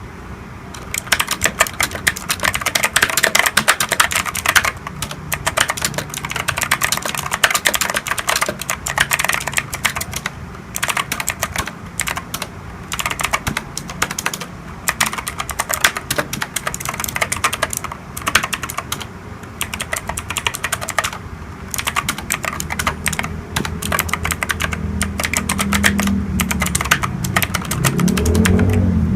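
Fast typing on a budget mechanical keyboard with clicky blue switches: a dense, uneven run of sharp key clicks with brief pauses. A low rumble builds underneath near the end.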